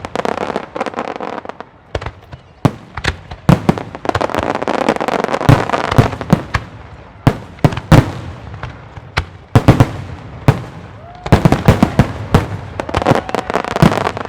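Aerial fireworks shells bursting overhead: dozens of sharp bangs in quick succession with crackle between them, coming in faster volleys near the end.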